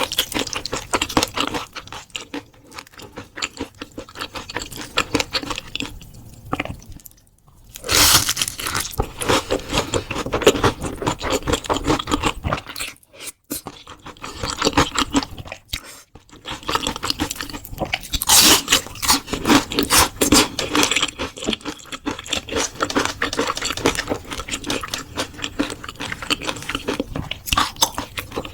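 Close-miked crunching and chewing of crispy battered fried jumbo shrimp, dense crackly bites with a couple of short breaks.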